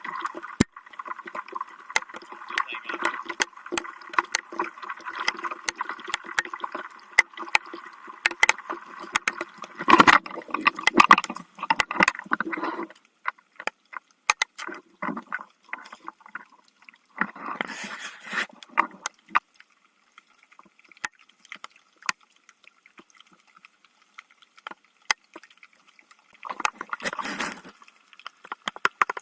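Paddle strokes in water during rain: irregular splashing and sloshing, with many sharp drop-like clicks. The sound is dense for the first dozen seconds, then comes in separate bursts with quiet stretches between.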